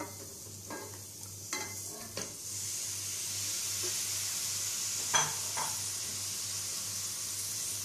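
Raw mutton bone pieces tipped into hot oil and spice masala in a pressure cooker, sizzling steadily and growing louder a couple of seconds in as the meat hits the heat. A few knocks come early on, and two sharp clinks of a utensil against the pot a little after halfway.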